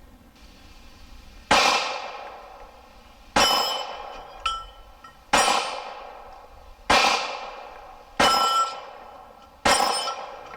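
Six slow, deliberate pistol shots from a Glock 9mm, each followed by the ringing clang of a round steel plate being hit.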